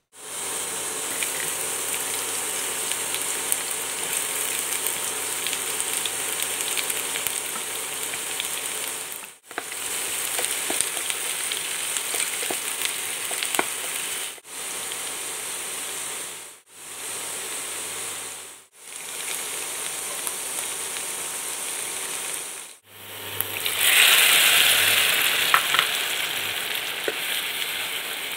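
Sliced onions and spices sizzling as they fry in hot oil in a pan: a steady frying sizzle broken by several short gaps, with a sudden louder sizzle near the end that slowly dies down.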